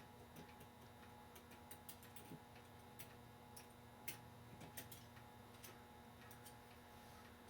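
Faint, irregular light metallic clicks and taps of a clock movement's brass gears and plates being handled as their pivots are worked into the plate holes, over a low steady hum.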